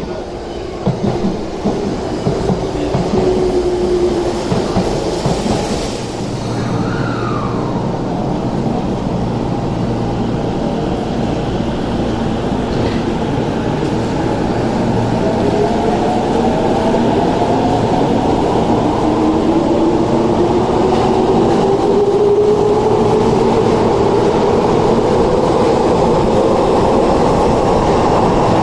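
Electric commuter trains on the Tozai Line. In the first seconds a train slows into a platform with a falling motor whine. Later a train pulls out of an underground platform, its traction motors giving a whine that rises steadily in pitch as it accelerates, over the rumble of the wheels.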